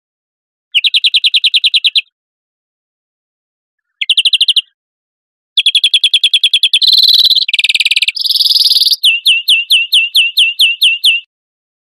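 European greenfinch singing: loud phrases of rapid trilled notes separated by short silences, with a rougher, buzzier stretch in the middle and a closing run of about five or six quick down-sliding notes a second.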